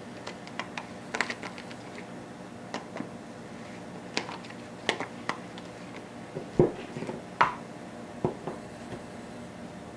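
Scattered light clicks and taps of a utensil against a bowl of poured fondant, with a few louder knocks later on as the bowl is handled and set down on the table.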